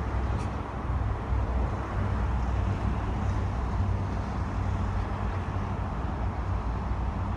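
Steady low rumble of outdoor background noise, with no distinct event in it apart from one faint high tick about half a second in.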